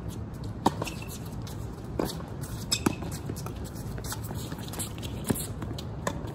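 Tennis balls struck by rackets and bouncing on a hard court during a doubles rally: sharp pops a second or two apart, the loudest about two thirds of a second in, over a steady background hum.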